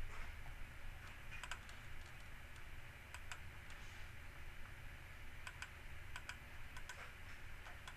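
Faint, irregular clicking of a computer mouse and keyboard during CAD work, over a steady low hum.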